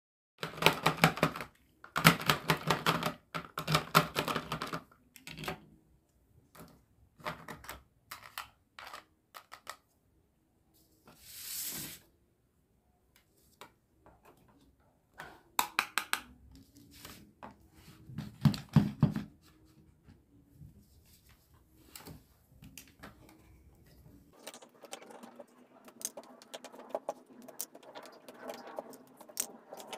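Hard plastic toy food and utensils clicking, tapping and rattling as they are handled, with the loudest rapid clicking in the first few seconds while a toy pizza-cutter wheel runs over a plastic pizza. A short hiss comes a little before the middle, and a softer continuous rustle runs under scattered clicks near the end.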